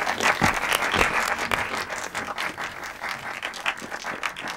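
An audience of schoolgirls applauding, many hands clapping at once, the clapping thickest in the first couple of seconds and thinning out toward the end.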